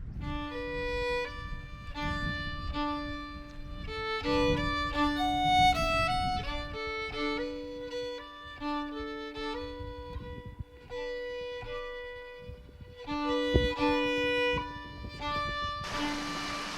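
Background music: a fiddle playing a tune of held notes, over a low rumble.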